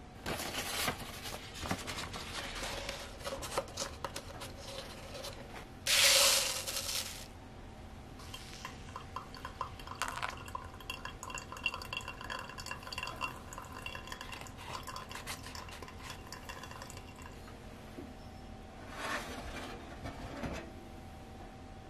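Kitchen clatter of dishes and utensils, with a short loud rush of noise about six seconds in. Then a thin stream of water is poured over coffee grounds in a paper-filter pour-over dripper, a long stretch of fine pattering and dripping with faint ringing tones, followed near the end by another short rush of noise.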